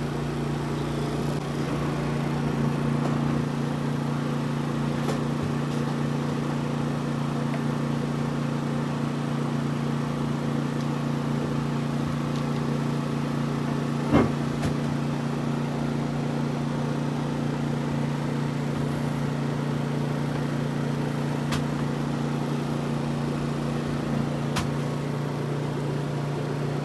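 Westerbeke 30B three-cylinder marine diesel engine idling steadily, with a single knock about halfway through. It is running after an oil change, and diesel is seen weeping past a seal that will need replacing.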